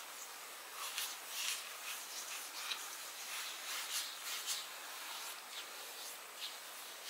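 Fingertips rubbing sunscreen into the skin of the face: soft, irregular swishing strokes, faint.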